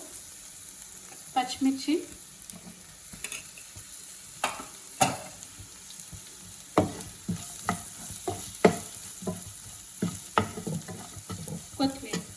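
Onion and spice masala sizzling in a frying pan while a spoon stirs it, knocking and scraping against the pan many times.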